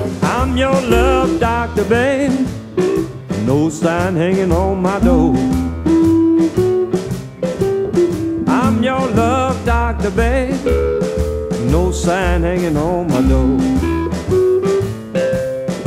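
Electric blues recording with singing, guitar and drums on a steady beat.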